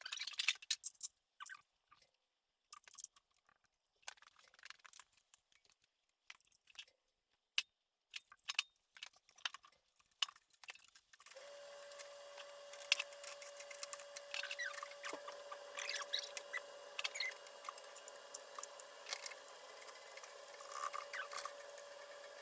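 Scattered small clicks and light clatter of hand tools and metal parts being handled, broken by short gaps. From about halfway through, a steady hum with one clear tone runs under the clicks.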